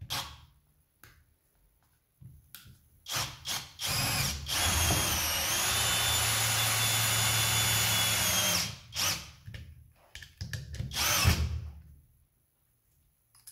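Parkside Performance PBSPA 12 A1 12 V brushless cordless drill driving a 5x60 hex-head screw into a wooden block through a socket bit: a few short bursts, a steady whining run of about four seconds, then more short bursts as the screw goes home.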